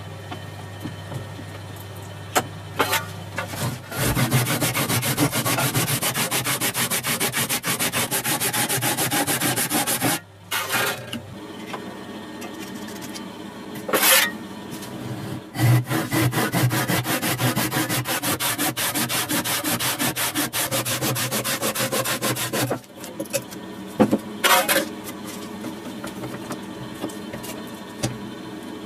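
A saw cutting through a green tree branch held in a vise, with fast, even strokes in two long runs separated by a short pause. A few sharp knocks come between and after the runs.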